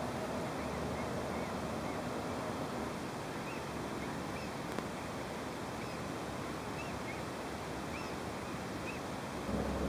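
Steady outdoor background hiss, with faint short bird chirps repeating irregularly, about one a second.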